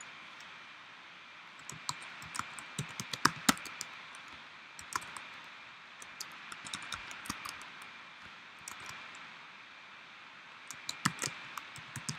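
Computer keyboard typing: irregular clusters of sharp keystroke clicks with pauses between them, over a steady background hiss.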